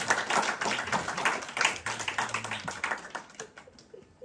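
Audience applauding: a dense patter of many hand claps that thins out and dies away about three and a half seconds in.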